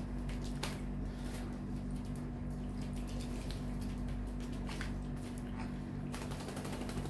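Young sun conures bathing in a shallow plastic tray of water, flapping their wings and splashing in short flurries, more of them near the end. A steady low hum runs underneath.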